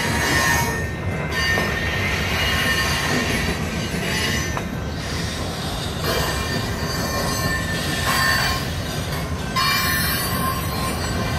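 CN freight train rolling past, its wheels squealing in thin high tones that come and go over the steady rumble of the cars.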